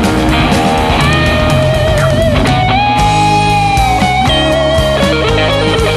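Instrumental rock passage: lead guitar plays long held notes that bend and waver in pitch over bass and drums.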